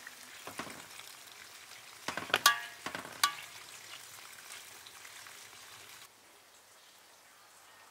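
A metal spoon knocking and clinking against a cooking pot while stirring, a few ringing knocks about two to three seconds in, over a steady faint sizzling hiss that drops away about six seconds in.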